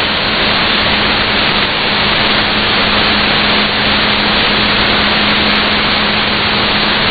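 Steady shortwave static: loud, even hiss from an AM broadcast signal on 17640 kHz, with a faint steady low hum running under it.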